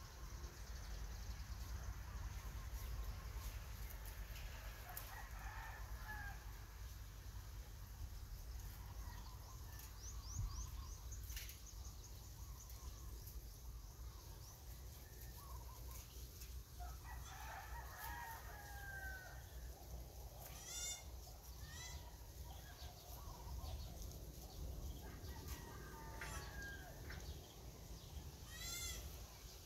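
A rooster crowing faintly a few times, with small birds chirping in quick runs over a low, steady rumble.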